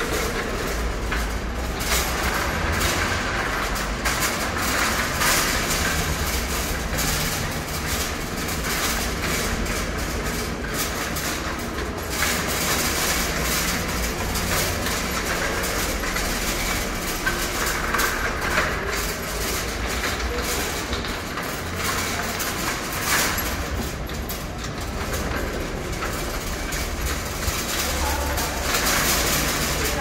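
Wire supermarket trolley pushed steadily across a stone tile floor: a continuous rolling rumble from its small rubber-tyred casters, with the wire basket and frame rattling in frequent small clatters.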